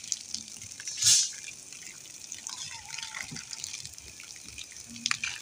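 Water dripping and trickling, with small clicks and one short, louder rush of water about a second in.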